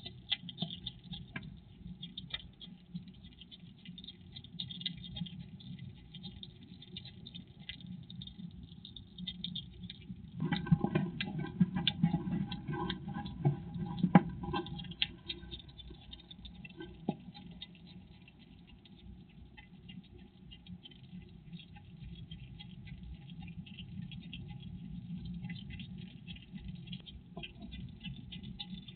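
Hedgehog chewing and crunching peanuts, a steady patter of small crackling clicks that gets louder and busier for a few seconds around the middle.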